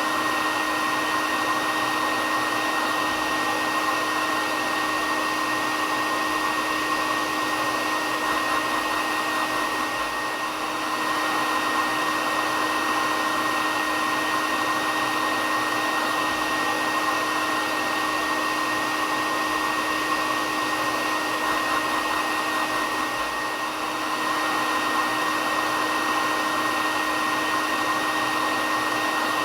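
Hair dryer running continuously: a steady blowing noise with a constant motor hum and a high whine, dipping slightly in level twice.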